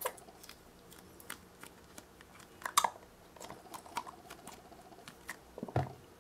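Plastic glue-pen bottle squeezed and handled over a plastic tub of water, making scattered small clicks and crackles. There is a louder cluster about halfway through and a soft knock near the end.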